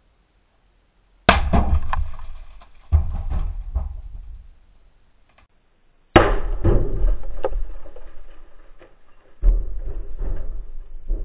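A heavy tool striking a 2003 Subaru Forester's cracked laminated windshield four times, each hard blow followed by the glass crackling and tinkling as the cracks spread.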